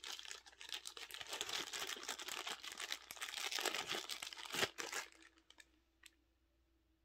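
Small clear plastic bag crinkling as it is handled and pulled at. The crinkling stops about five seconds in, leaving a few faint clicks.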